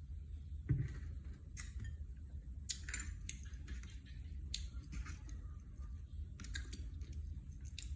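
Irregular sharp clicks and taps, about a dozen spread unevenly, with a low thump about a second in, over a steady low hum.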